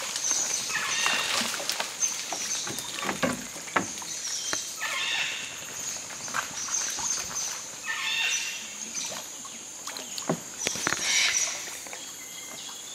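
Dugout canoe being poled along a river: knocks of the wooden pole against the hull and water splashing, over a steady high insect drone. Short high-pitched animal calls recur every two to three seconds.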